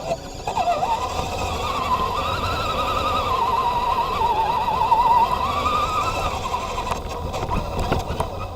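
Electric motor and gear whine of a 1/10 scale 4x4 RC truck, its pitch wavering quickly and rising and falling as the throttle changes, over a low rumble.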